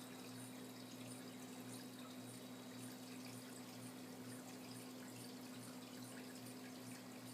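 Vintage Hunter 36-inch ceiling fan running on high as it spins up: a steady electric motor hum with a faint rushing of air that pulses about three times a second.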